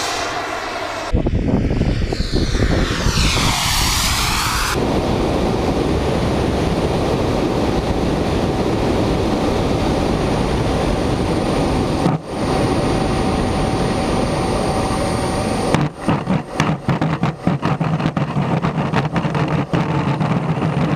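Factory 8 kg-thrust turbojet of a large radio-controlled jet model, its whine sweeping down and up in pitch as the plane passes, then heard from on board during the landing approach as a steady turbine whine under rushing air. About three-quarters of the way in, the wheels touch down on the asphalt road and the rolling gear rattles and knocks rapidly.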